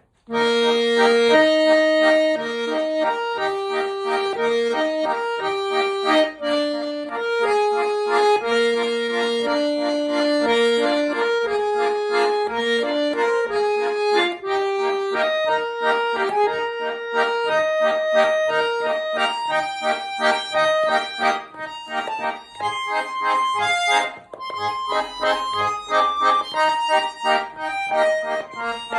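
Schwyzerörgeli, the Swiss diatonic button accordion, playing a lively traditional folk tune: a melody over held bass and chord notes, starting right at the beginning.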